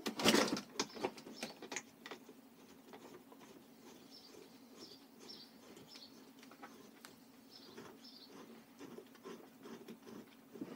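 Plastic knocks and clicks from a compact electric pressure washer being handled and its hose fitting worked, loudest in the first two seconds. After that only a faint steady hum and a few faint bird chirps.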